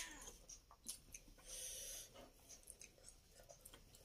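Faint eating sounds: quiet chewing with small scattered clicks as fingers pick food off a steel plate.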